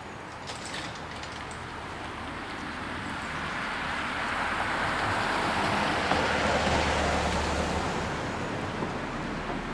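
A camper van driving past on the road. Its tyre and engine noise swells to a peak about six seconds in, then fades away.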